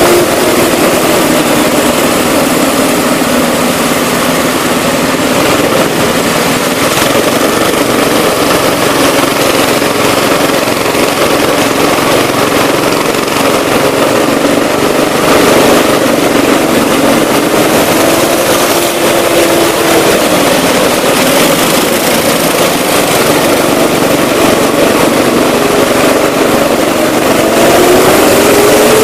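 Go-kart engine running loudly under the driver, at speed around the track, its pitch rising and falling with throttle and climbing near the end as it accelerates.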